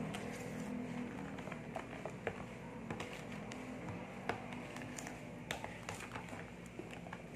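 Metal spoon stirring a thick coffee and cream mixture in a plastic tub, tapping and clicking irregularly against the container's sides and bottom, over a low background hum.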